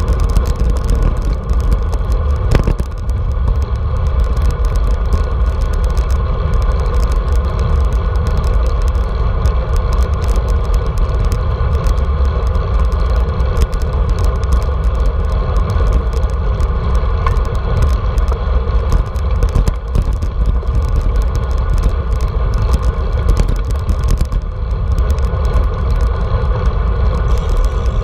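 Steady, loud wind rush buffeting a handlebar-mounted action camera's microphone as a road bike rides along at speed, with the low rumble of moving air and road noise.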